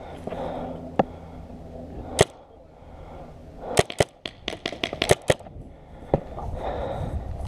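Paintball markers firing: single shots about one and two seconds in, then a rapid string of about ten shots over a second and a half, and one more shot near the end.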